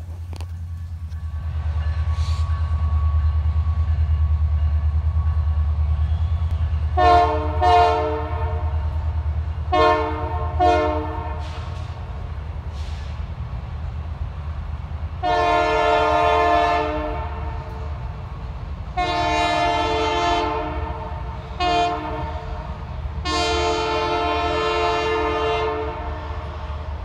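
Canadian Pacific Holiday Train rumbling past, its diesel locomotive's air horn sounding four short blasts in two pairs. Then comes the long, long, short, long pattern, the standard signal for a level crossing.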